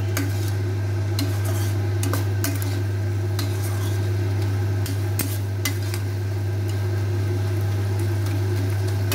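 Flat metal spatula stirring and scraping dried small fish and vegetables around a nonstick wok, with scattered clicks against the pan and a light sizzle as the nearly dry curry fries. A steady low hum runs underneath and is the loudest part.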